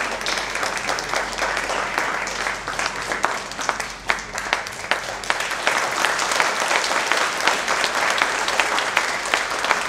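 Audience applauding steadily. The clapping thins briefly about four seconds in, then picks up again.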